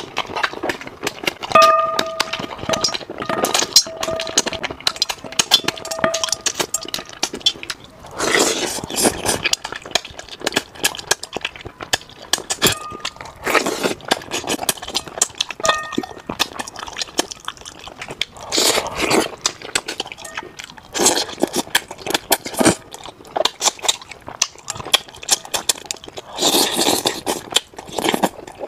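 Close-miked eating of braised carp: wet chewing, smacking and sucking at the fish, with several louder slurps spread through. Chopsticks click now and then against a metal bowl.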